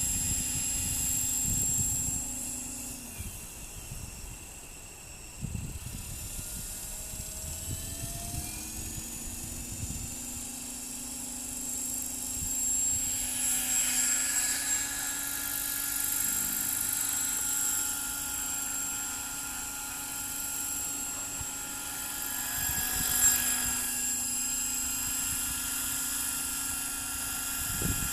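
Radio-controlled Accurate 550 helicopter flying, its rotor and drive giving a steady whine that shifts in pitch and grows louder and softer as it manoeuvres. Wind buffets the microphone during the first several seconds.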